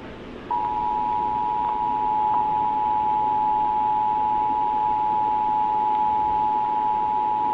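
Emergency Alert System attention signal: two tones sounded together as one steady, unbroken beep, starting about half a second in, over a low hiss.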